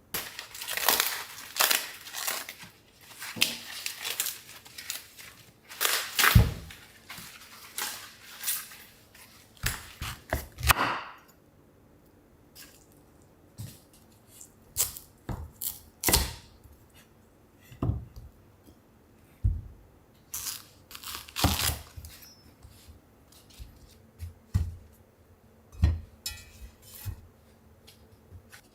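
Hand preparation of fresh vegetables in a small kitchen: dense bursts of rustling and tearing for the first ten seconds or so, then scattered short knocks and taps.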